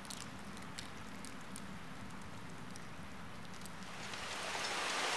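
Faint background ambience with a low steady hum and a few soft ticks. About four seconds in, a steady hiss fades in and grows louder.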